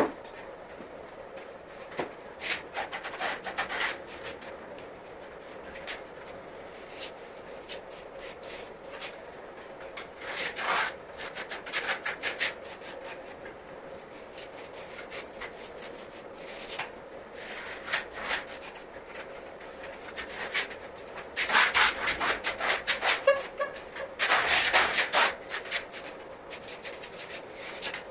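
Steel trowel scraping across decorative plaster on a wall, in runs of quick strokes with pauses between; the loudest runs come near the end. A faint steady hum runs underneath.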